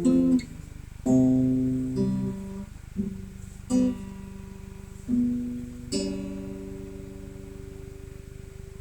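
Acoustic guitar played slowly, about seven chords struck one at a time and each left to ring and fade, as when working through a song's accompaniment in rehearsal. A faint steady hum runs underneath.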